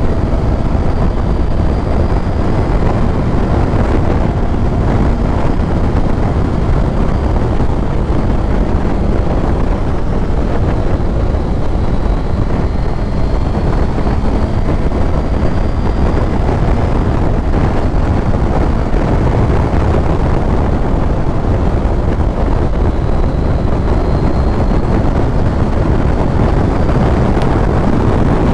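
Motorcycle riding at speed, heard from the rider's own microphone: a steady rush of wind buffeting the mic, with the engine running underneath, its pitch slowly rising and falling.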